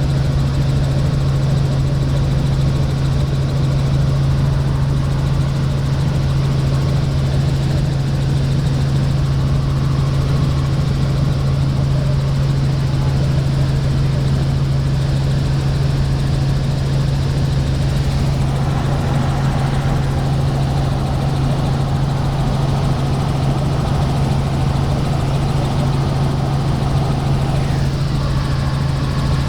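Helicopter in flight: a steady, unbroken drone with a strong low hum.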